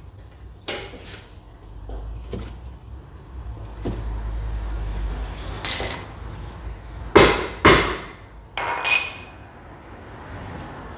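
Metal hand tools knocking and clanking against car suspension parts, with scattered light clicks, two loud sharp knocks about seven seconds in, and a short ringing metallic clink just after.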